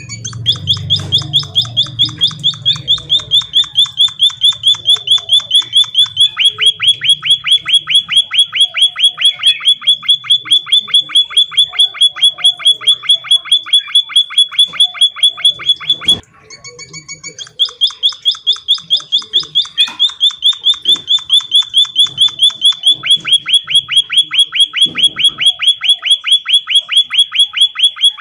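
Emprit (munia) calling in a fast, steady train of sharp, high chirps, about five a second, breaking off for about a second and a half a little past halfway and then starting again.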